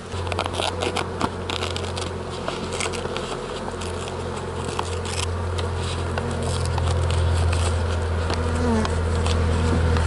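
Honeybees buzzing around the hive close to the microphone, with small crackles and rips of newspaper being picked and peeled off the seam between two hive boxes.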